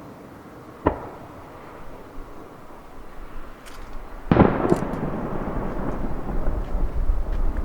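Aerial fireworks shells bursting: one sharp bang about a second in, then a louder boom with a second one just after it, about four seconds in, trailing off into a rumbling echo.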